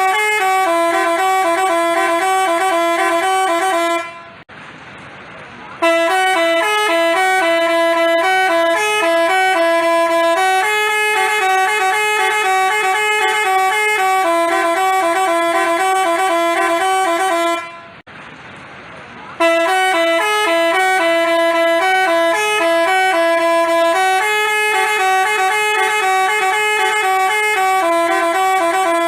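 Telolet basuri multi-tone bus horn playing a stepping melody of clear, steady notes. It stops twice for about a second and a half, near 4 s and near 18 s, then the tune starts again.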